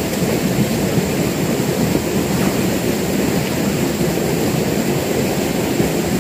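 An engine running steadily, a low continuous drone with no breaks.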